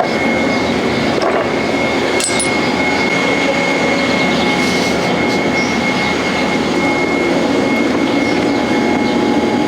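Machinery running steadily, with a high steady whine over it that stops about eight seconds in.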